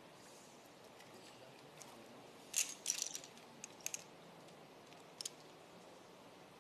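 Domino tiles clicking against each other as they are picked up and stacked: a quick cluster of sharp clicks about two and a half seconds in, two more near four seconds and a single one a little past five seconds.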